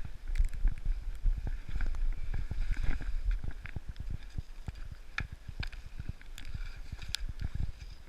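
Sliding down over snow: a steady low wind rumble on the microphone, broken by frequent short bumps and clicks from the ride over uneven snow.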